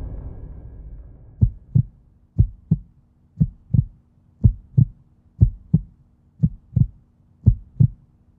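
Soundtrack music fading out, then a heartbeat sound effect: low double thumps, lub-dub, about one pair a second, over a faint steady hum.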